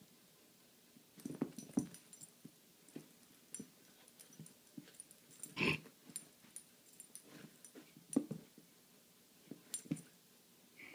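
An Italian Greyhound and a Bengal cat play-fighting on a rug: faint, scattered scuffles and soft thumps, with a few brief dog sounds. The loudest sound comes about halfway through.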